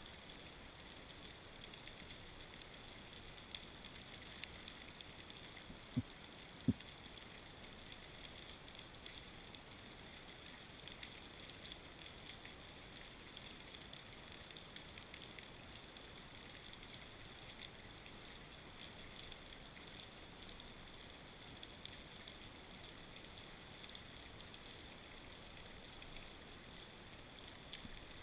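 Faint underwater ambience picked up by a camera in its housing: a steady high hiss, with a few short clicks about four to seven seconds in.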